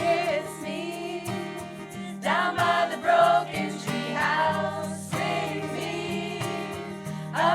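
Group of voices singing together in harmony over strummed acoustic guitar, with new sung phrases entering about two seconds in and again near the end.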